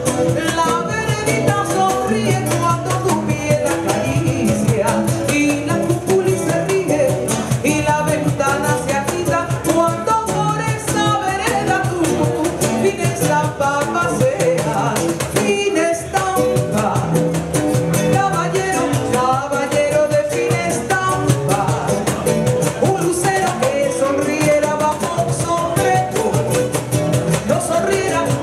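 A woman singing a typical Peruvian song into a microphone, accompanied by acoustic guitar and cajón.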